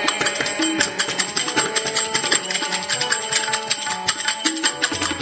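Instrumental break in Sikh kirtan with no singing: harmonium melody over tabla and jingling hand percussion, in a steady, quick rhythm.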